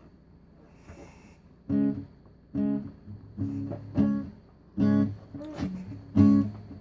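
Acoustic guitar playing a song's intro: after a short quiet start, chords come in about two seconds in and sound at an even pace, a little under one a second.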